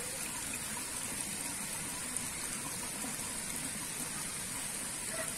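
Steady outdoor background hiss with no distinct events, topped by a thin, even high-pitched band.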